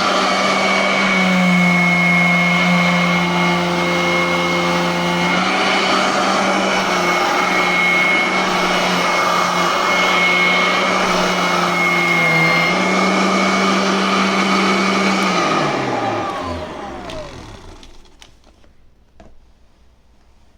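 Royal Everlast upright vacuum cleaner running steadily, then switched off about fifteen seconds in, its motor winding down with a falling pitch over two to three seconds until it stops.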